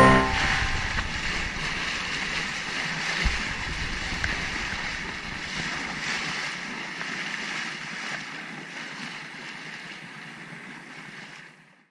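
Wind on the microphone and sea water rushing beside a boat on open water, a steady hiss that slowly fades away toward the end.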